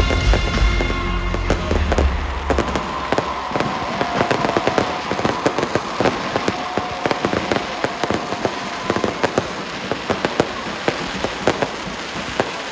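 Dense, irregular crackling pops, with music playing underneath during the first second or so.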